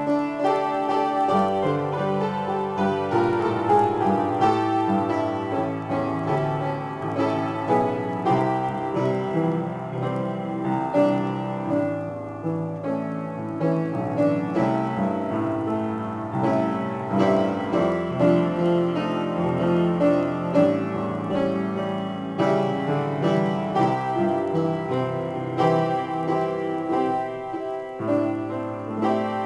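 Solo piano improvisation: a continuous stream of chords and quick notes over held low bass notes, with no pause.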